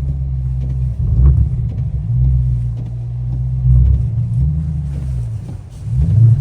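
Dodge Scat Pack's 6.4-litre HEMI V8 revving in repeated surges, the pitch rising and falling several times, as the car can't get traction in snow.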